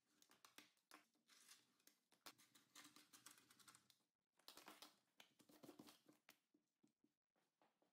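Very faint rotary cutter slicing leather along a plastic ruler on a cutting mat, with small scattered ticks and rustles as the leather and ruler are handled.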